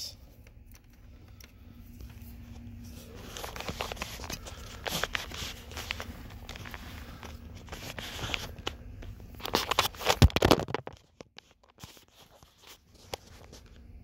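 Handling noise: scraping and rustling as a multimeter and its test leads are moved about on the carpeted floor of a pickup's cab. The loudest scraping comes about ten seconds in.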